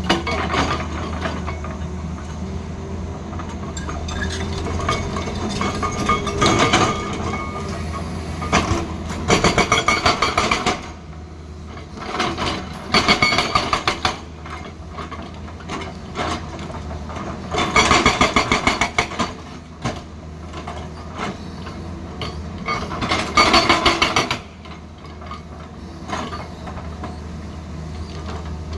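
Tata Hitachi excavator with a hydraulic rock breaker hammering hard stone: four bursts of rapid blows, each one to two seconds long, over the steady drone of the engine.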